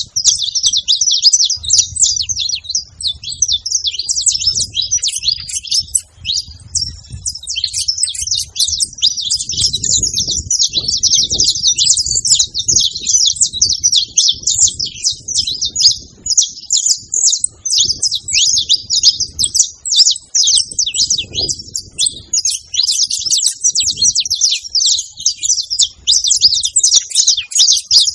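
Saffron finches singing, a dense, continuous stream of quick high chirps and trills with hardly a pause.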